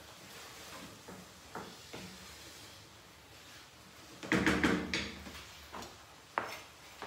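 Wooden spatula knocking and scraping against a frying pan as food is stirred on the hob, a few separate taps, then a louder clatter of knocks about four seconds in and one more sharp click near the end.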